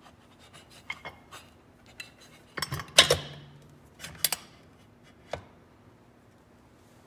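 Metal clicks and clinks as the cover of a snowmobile drive clutch is set onto the sheave and turned into place by hand. The loudest is a clank about three seconds in that rings briefly, followed by a couple more clinks.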